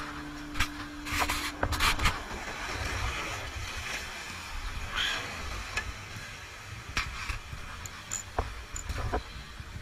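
Rough surf washing against a rock ledge, with wind rumbling on the microphone. There are scattered sharp knocks and scrapes of fishing gear being handled, and a few louder bursts of noise in the first two seconds.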